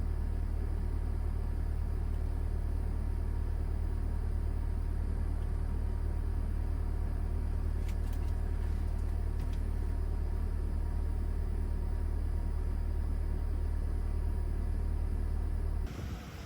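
Steady low mechanical rumble and hum in the van's cabin, cutting off abruptly near the end.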